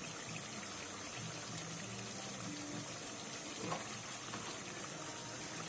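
Carrot masala sizzling and simmering in oil in a steel wok: a steady hiss.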